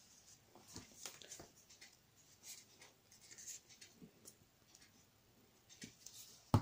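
Paper and cardstock pieces being handled on a craft table: faint scattered rustles and light taps, with one sharp knock near the end.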